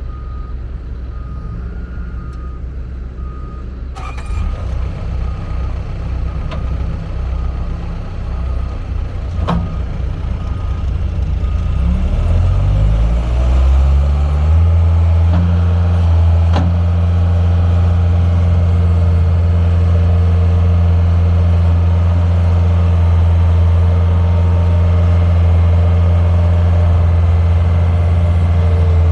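2006 Bobcat S175 skid steer loader's four-cylinder diesel engine running at idle. About halfway through it speeds up smoothly and then holds steady, louder, at a higher speed.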